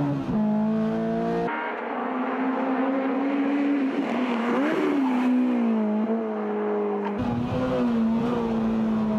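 Spoon-tuned Honda Civic Type R (FD2) race car's K20A four-cylinder engine running hard at high revs on a flying lap. Its pitch dips and climbs again about halfway through, then settles a little lower.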